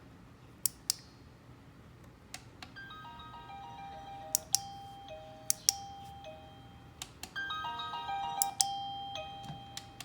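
A plug-in wireless doorbell receiver plays an electronic chime melody in clean stepped notes, starting about three seconds in, with a second tune starting near the end. Sharp clicks come before and between the tunes.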